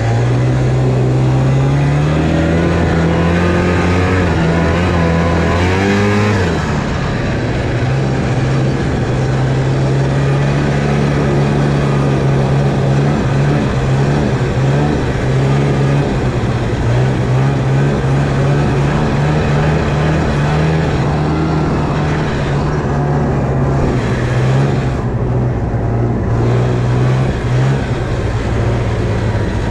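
Snowmobile engine heard from onboard while riding, its pitch climbing in the first couple of seconds, falling sharply about six seconds in as the throttle comes off, then holding steady at cruising speed over a constant rushing noise.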